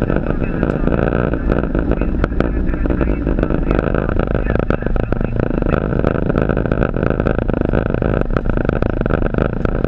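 Steady rushing noise on the flight deck of a Boeing 737 in flight, with irregular crackles and clicks all the way through.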